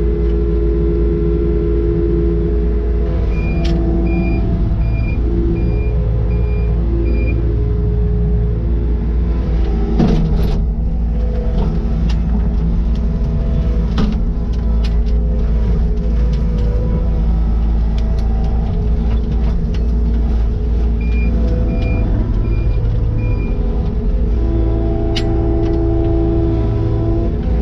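Takeuchi TL150 compact track loader's diesel engine running steadily under work. Its backup alarm beeps in two short runs of evenly spaced high beeps, a little over one a second. Scattered knocks and clanks are heard, the loudest about ten seconds in.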